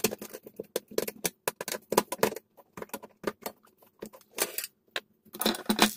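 A small spanner clicking and clinking against a nut and bolt as it is tightened on a metal amplifier chassis: a quick, irregular run of small metallic clicks, busier near the end.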